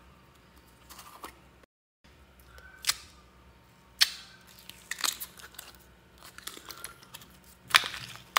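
Thin plastic slime tub handled and squeezed: a series of sharp plastic clicks and crackles, with the loudest near the end as the clear slime is pushed out of the tub.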